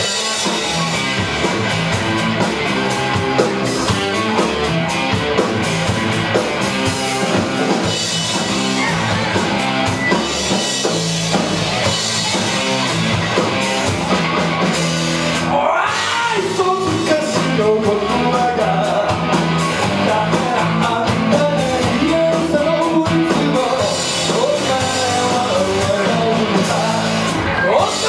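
Live rock band playing loud, with electric guitars, bass, a drum kit and keyboard. After a short break about halfway through, a male lead vocal comes in.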